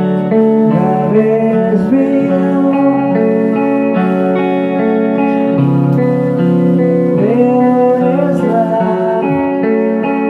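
Live rock band playing: guitars holding sustained chords under a melody line that slides up and down in pitch.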